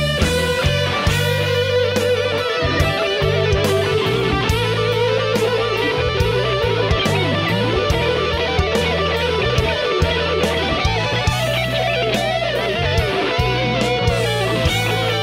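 Live rock band playing: a lead electric guitar holds sustained notes with wide vibrato over several other electric guitars, bass guitar and a drum kit with steady beats.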